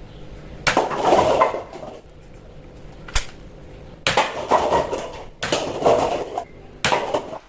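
Plastic toy packaging and parts being handled during unboxing: several short rustling, clattering bursts and one sharp click about three seconds in.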